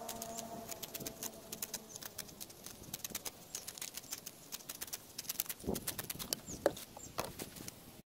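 Scissors snipping through a rubber bicycle tyre: a run of sharp, irregular clicks. A few duller knocks come near the end as the tyre is handled against the plastic bin. A faint hum fades out in the first second.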